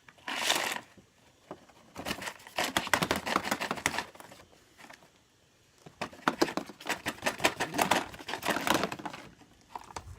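Small hard SweetTarts candies being poured into a poster-board compartment, rattling in quick clicky bursts: a short one at the start, then two longer pours, about two and six seconds in.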